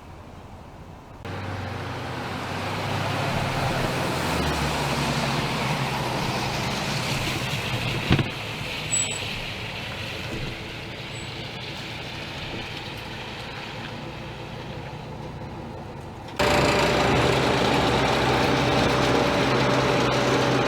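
Motor vehicle engines running with a steady low hum under outdoor noise, jumping abruptly louder about a second in and again near the end, with one sharp knock about eight seconds in.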